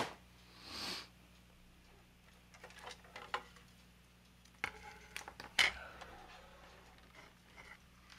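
Light clicks, taps and rustling of plastic model parts and wires being handled, as a plastic disc carrying a bundle of lighting-kit wiring is lifted out of a model spacecraft hull and set down on a cutting mat. There is a soft rustle just under a second in and a cluster of clicks and taps around the middle.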